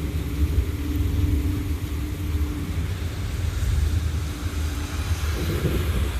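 Low, continuous rumble of thunder in a storm, with a faint steady hum over it for the first few seconds.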